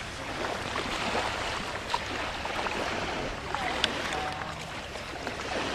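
Beach ambience: a steady rushing noise with faint children's voices now and then, and two small sharp clicks, one about two seconds in and one near four seconds.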